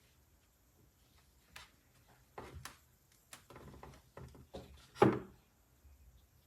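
Scattered soft knocks and rustles in a small room, with one louder thump about five seconds in.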